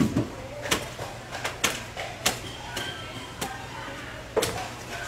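A metal hand tool scraping and knocking against the skin of a whole tuna near the tail, in sharp, irregular strokes, about eight in five seconds.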